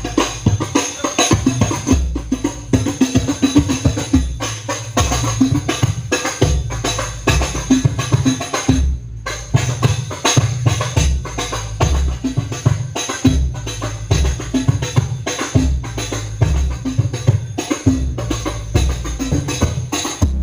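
Loud percussive music with heavy bass drum beats and tambourine, played over a large outdoor sound system during a sound check. The music drops out briefly about nine seconds in.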